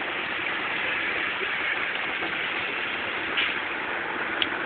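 Steady hiss of heavy rain on the car, heard from inside the cabin, with a couple of small sharp ticks near the end.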